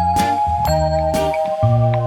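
Background music of bell-like chiming notes over a low bass, a new note struck about twice a second.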